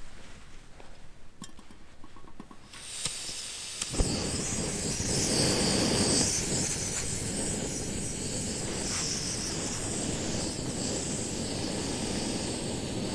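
Backpacking gas canister stove being lit: gas hisses from the opened valve, it catches with a sharp pop about four seconds in, then the burner runs with a steady rushing flame under the pot.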